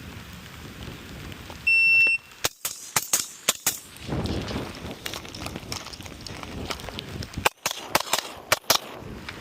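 Electronic shot timer giving one loud start beep, then gunshots fired in a quick string of about five or six, and after a pause of about four seconds a second quick string of about five or six shots. Rain hisses steadily underneath.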